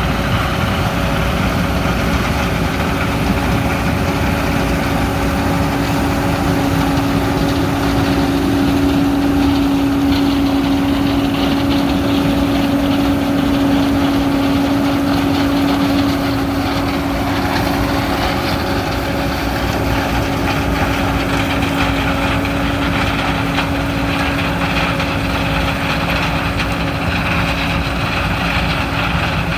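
Heavy farm machine's diesel engine running steadily, heard from inside the cab, with a steady hum over the engine noise. The sound eases slightly about halfway through.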